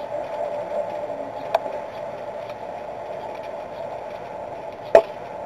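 Steady background hum with a light click about a second and a half in, then a single sharp smack near the end: a baseball pitch popping into the catcher's mitt.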